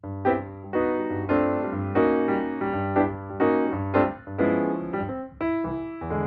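Background piano music: chords struck about twice a second over a steady bass line.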